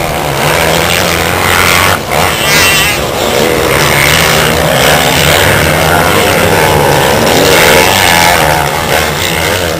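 Motocross dirt bikes racing past, their engines revving up and down, loud and close. The sound breaks off abruptly for a moment about two seconds in.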